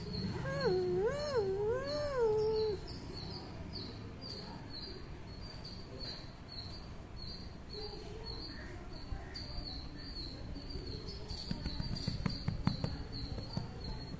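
A domestic cat yowling: a long, wavering moan that rises and falls three times over about two seconds, a cat's sign of annoyance at being handled. After that, softer handling noises, with a few clicks near the end.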